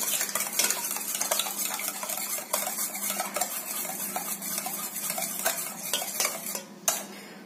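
A metal spoon beating eggs and sugar in a stainless steel bowl, making a quick, continuous run of clinks and scrapes against the bowl, stopping with a final clink near the end.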